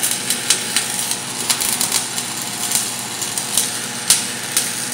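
Stick-welding arc burning a 7018 electrode: a steady crackling hiss broken by irregular sharp pops.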